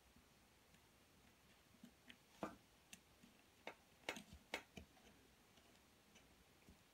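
A few faint, sharp clicks and taps, about seven of them between two and five seconds in: a small charging jack being handled and pushed into a hole in the homemade drill's pipe body.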